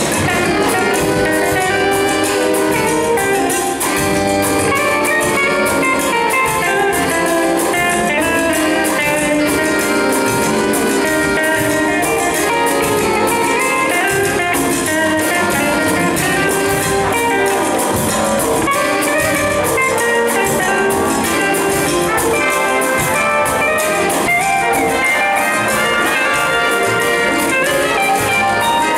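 Jazz big band playing: brass and saxophones over guitar and drum kit, with a steady cymbal beat.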